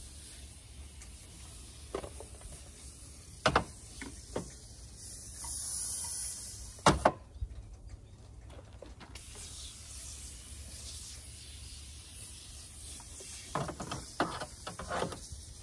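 Aerosol can of Super Clean degreaser spraying in long hisses, with a break about seven seconds in. A few sharp clicks and knocks come in between; the loudest are a little after three seconds and around seven seconds.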